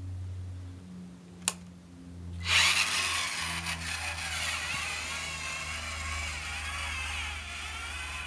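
Small electric gear motors of a four-wheeled hobby robot whining as it drives, the whine wavering up and down in pitch. A single sharp click about a second and a half in; the whine grows louder about a second later, over a steady low hum.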